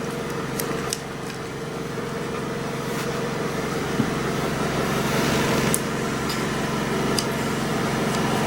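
A steady mechanical hum, with several light, sharp clicks from handling the plastic release tab and clip of a car wiper blade.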